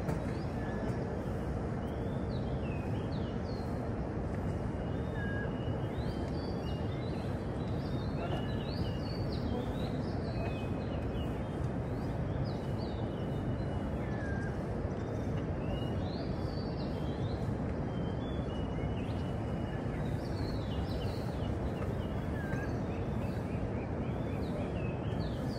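Many small birds chirping and twittering in short rising and falling calls throughout, over a steady low background rumble.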